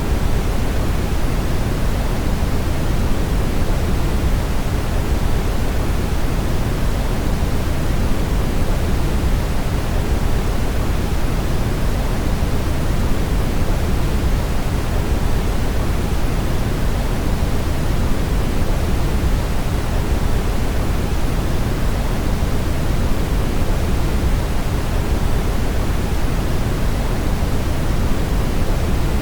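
Steady brown noise: an even, unchanging rush weighted heavily toward the low end, without drops, clicks or changes.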